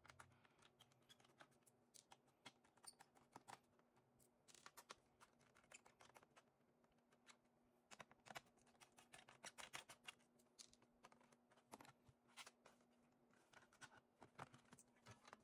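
Near silence with faint, scattered small clicks and taps as a precision screwdriver works the bottom-case screws of an HP EliteBook 840 G4 laptop and the screws and cover are handled. The clicks come thicker a little past halfway.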